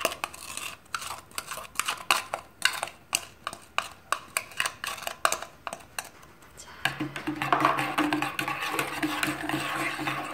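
A metal spatula tapping and scraping against a plastic cup and the rim of a stainless steel pot in quick, irregular clicks as the additive is scraped out into melted soap base. About seven seconds in, the clicks give way to the swish of stirring in the pot, with a steady low hum underneath.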